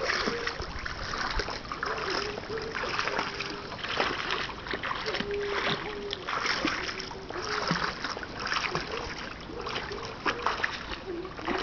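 Water splashing as a small child kicks his legs and paddles his arms while floating on his back in a swim vest, in irregular splashes about every second.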